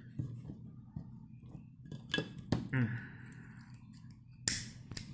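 A butane blow torch head being fitted onto a cassette gas canister: a few sharp metallic clicks, with a short hiss of gas about three seconds in.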